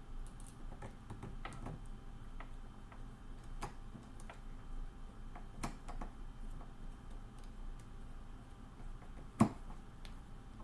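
Scattered light clicks and taps of small screws and a hand tool being handled while parts are fastened, with one sharper knock about nine seconds in.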